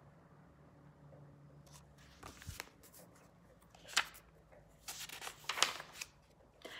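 Pages of a picture book being handled and turned: scattered soft paper rustles and taps, with a sharp tap about four seconds in and a cluster of rustles a second later.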